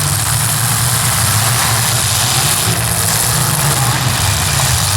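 Demolition derby cars' engines running together, a steady loud drone with a hiss over it.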